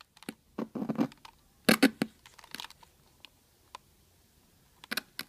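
Scattered clicks and short crackles from handling the cable and a small black device at a small amplified speaker, with the music cut off.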